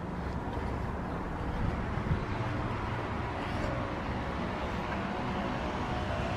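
Steady outdoor background noise with a low hum underneath and a single light click about two seconds in.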